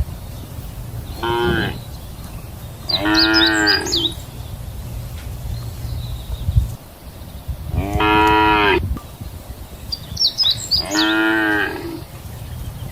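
Cows mooing: four calls, a short one followed by three longer moos of about a second each, spaced a few seconds apart.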